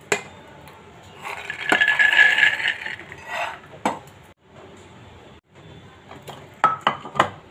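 Sprouted black chickpeas poured from a steel bowl into an aluminium pressure cooker, rattling against the metal for about two seconds. Near the end come a few sharp metal clinks of the bowl and cooker.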